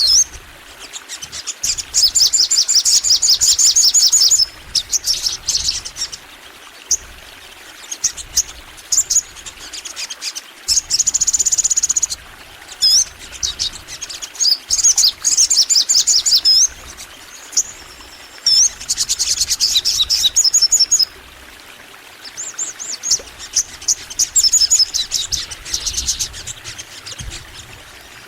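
Crimson sunbird (sogon) singing in full song: fast, high-pitched trills of rapid chirping notes in bursts of one to two seconds, with short pauses between them. One held high note comes around the middle.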